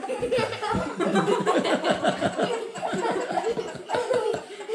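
Laughter in quick repeated bursts, with a couple of dull thumps in the first second.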